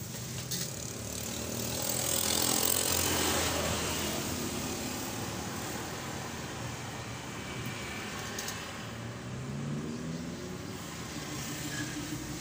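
A passing motor vehicle, its noise swelling to a peak about two to three seconds in and then slowly fading.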